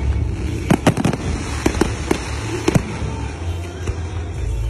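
Fireworks display: aerial shells bursting, about a dozen sharp bangs at irregular intervals over a steady low rumble.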